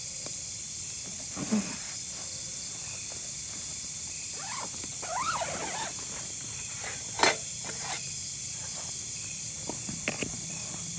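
Steady high chorus of night insects such as crickets, with a few soft clicks and knocks, the loudest about seven seconds in.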